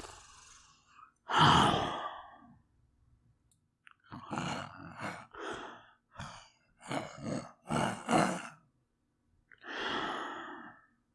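A man's heavy breathing and sighs close to the microphone: a loud sigh about a second in, then a run of short, quick breaths, and one long exhale near the end.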